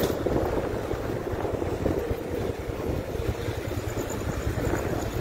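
Motorcycle riding along a street: steady wind noise on the microphone with the engine running underneath.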